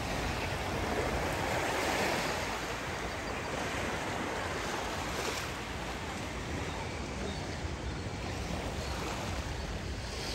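Sea surf washing onto a beach in a steady wash that swells a couple of times, with wind rumbling on the microphone.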